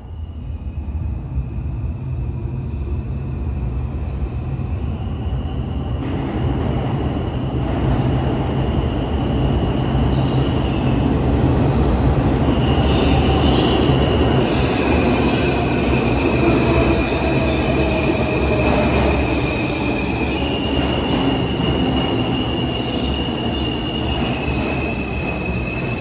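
New York City Subway R160 train running with a heavy rumble and long, steady, high-pitched wheel squeals that hold, break off and come back at a slightly different pitch. The sound grows louder over the first dozen seconds and then stays loud.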